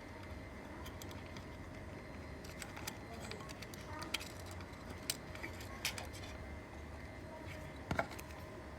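Scattered small clicks and taps from handling a thin wire against a circuit board and its IC pins, the sharpest about four, five, six and eight seconds in, over a steady low hum.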